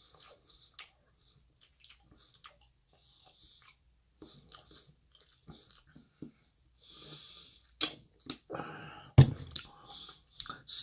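Quiet sips and swallows from a plastic water bottle, followed in the last few seconds by a breath and a sharp knock a little after nine seconds in, as of the bottle being set down on the table.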